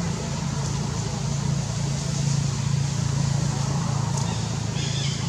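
Steady low hum of a running engine.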